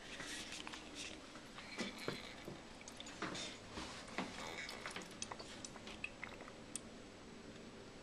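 Faint, irregular small ticks and drips from inside an open toilet tank, over a soft hiss.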